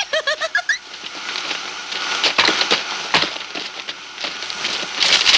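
Cartoon sound effects of a machine going haywire: a dense run of clattering, rattling and crashing, with louder crashes about two, three and five seconds in.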